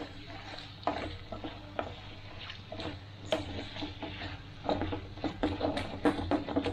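Wooden spatula stirring and scraping chicken and onions in a metal pan over a frying sizzle, working loose the browned bits caught on the bottom. The scrapes come quicker and louder from about two-thirds of the way in.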